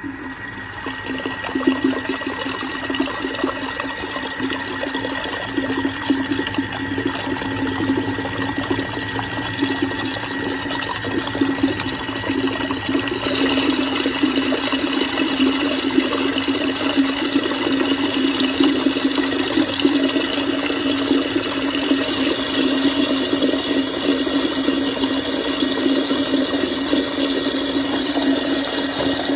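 Thermomix blender starting up and running steadily at speed, churning hot peri peri sauce while olive oil is streamed in through the lid to emulsify it. The whirring, sloshing sound grows a little louder and brighter about halfway through.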